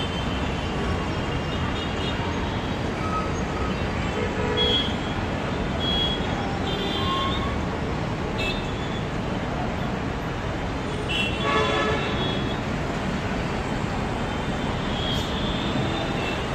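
Steady road-traffic noise with several short horn toots scattered through it.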